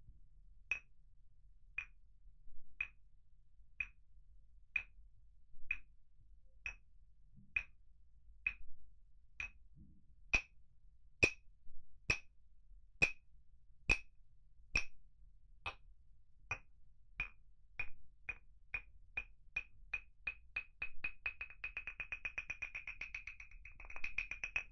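Claves, two hardwood sticks struck together: sharp, high-pitched clicks at a steady beat of about one a second, which speed up in the second half into a fast, even roll.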